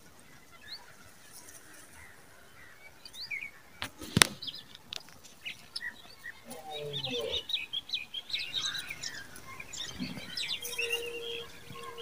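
Small songbirds chirping and twittering, a few short calls at first and a busy stretch of many chirps in the second half. A single sharp click about four seconds in is the loudest sound.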